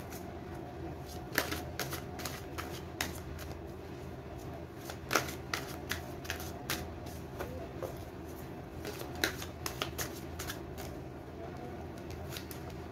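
A tarot deck being shuffled by hand: a run of short, irregular card snaps and slides over a low steady hum.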